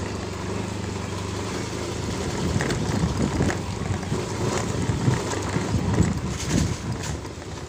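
Motorcycle engine running at low speed, steady at first, then more uneven, with scattered knocks and rattles from bumps from about two and a half seconds in.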